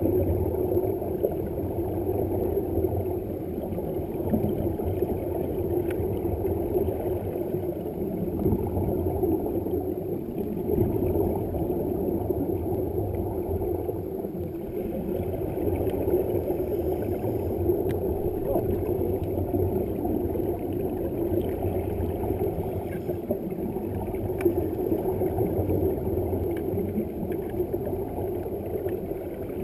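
Muffled, steady underwater rush and low hum, as heard from inside a waterproof camera housing, with nothing above a dull low register.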